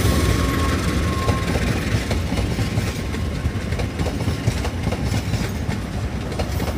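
Passenger coaches of a train rolling past at speed, a steady rumble with wheels clicking over the rail joints. A thin steady whine fades out about a second in.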